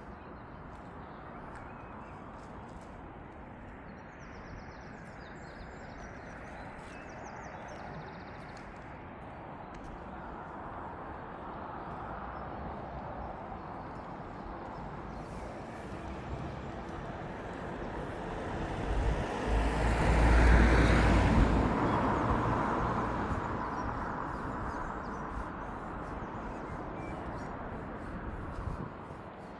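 A vehicle passing by: a rumbling rush of noise that builds slowly, peaks about two-thirds of the way through, and fades away near the end.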